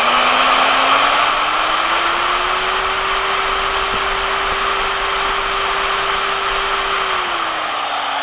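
Milwaukee 4204-1 magnetic base drill press motor running free with nothing being drilled. Its whine rises in pitch over the first three seconds as the variable speed control is turned up, holds steady, then drops near the end as the speed is turned back down.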